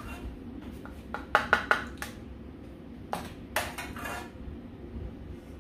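Kitchen utensil clinking and scraping against a cup and dishware as the cup is packed full of cooked rice: a quick run of three sharp clinks about a second and a half in, then a few more a couple of seconds later.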